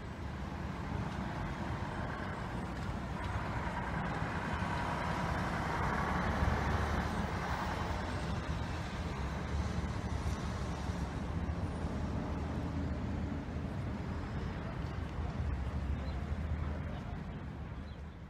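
Street traffic with a large vehicle's engine running close by, a steady deep hum. It builds over the first few seconds, is loudest around the middle and fades near the end.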